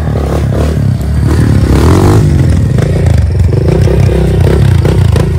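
Dirt bike engine revving as the rider pulls away: the pitch rises and falls about a second in, then the engine runs on with a throbbing pulse.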